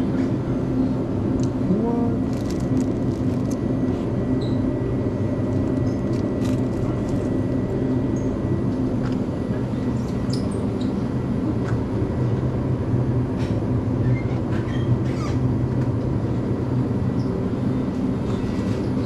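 Steady low hum and rumble of a convenience store's open refrigerated display cases and ventilation running, with a faint high steady tone and a few light clicks.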